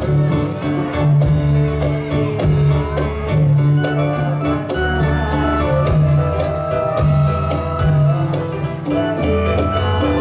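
Accompaniment music for a Dolalak dance: low bass notes that shift every second or so under a melody, with quick, frequent drum strikes throughout.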